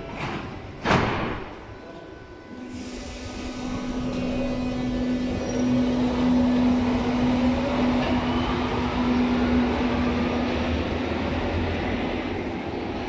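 Berlin U-Bahn train's doors shutting with a sharp bang about a second in. The train then pulls out, its electric drive whining upward in pitch over a steady hum and the rumble of the wheels as it gathers speed.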